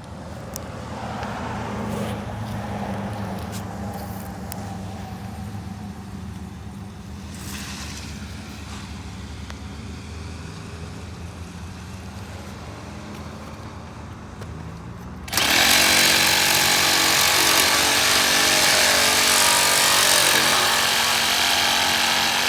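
A steady low hum, then, about two-thirds of the way in, a handheld power saw starts suddenly and runs loudly for about seven seconds, cutting through the PVC irrigation pipe at the marked damage section.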